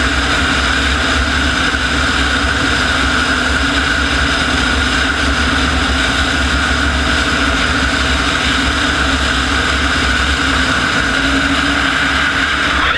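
Klimov TV3-117 helicopter turboshaft engine in a modified tractor puller, idling: a steady turbine whine over a broad, even rush.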